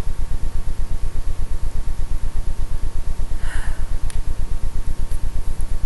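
Steady low mechanical throbbing, pulsing about nine times a second, with a faint steady whine above it. A short breath comes about three and a half seconds in, then a light click.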